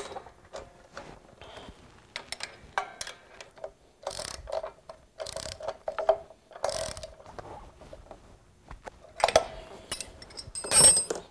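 Hand ratchet wrench clicking in short runs as bolts are tightened on a steel ATV plow mount, among light metal clinks of tools and parts. A louder, ringing metal clank comes near the end.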